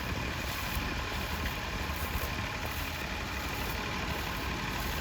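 Tractor engine running steadily at a low, even pitch.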